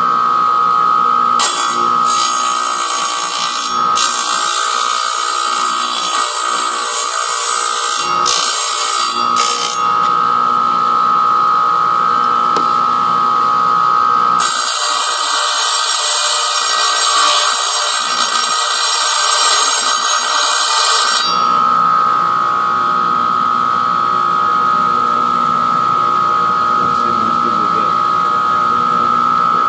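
Stained glass grinder motor running with a steady high whine, and glass being ground against the spinning bit in two spells of several seconds each, about a second in and again in the middle, as a broken glass edge is reshaped.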